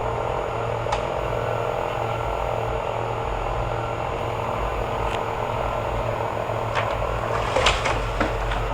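Chainsaw engine running steadily at an even pitch, with a few sharp clicks and knocks, loudest in a cluster about three quarters of the way in.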